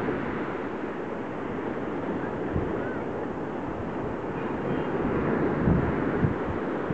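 Small sea waves breaking and washing up on a sandy beach: a steady surf rush, with wind buffeting the microphone in a few short low bumps in the second half.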